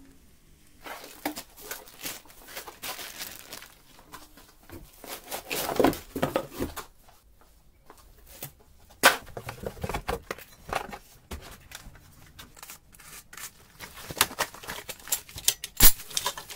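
Clear plastic wrap crinkling, rustling and tearing as gloved hands pull it off a boxed machine, with cardboard packaging shifting. Irregular crackles throughout, with a sharp snap about nine seconds in and another near the end.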